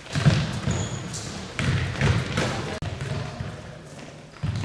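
Futsal balls being kicked, caught and bouncing on a sports-hall floor: several separate thuds that echo in the hall, with voices in the background.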